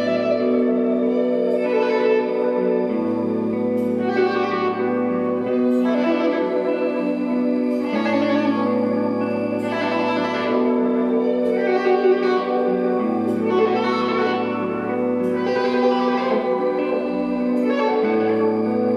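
Ambient instrumental music of sustained, layered tones with swells about every two seconds and a low bass note that returns about every five seconds in a repeating cycle.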